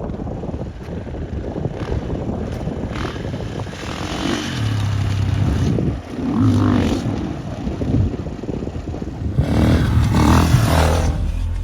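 Off-road vehicle engine running and revving in surges over a rough, noisy rumble of driving; the revs swell about four seconds in, again around six and a half seconds, and loudest near the end.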